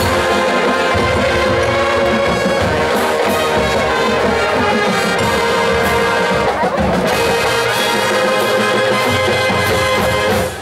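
A marching band playing: trumpets and other brass carrying the tune over sousaphones and a drumline. The music stops right at the end.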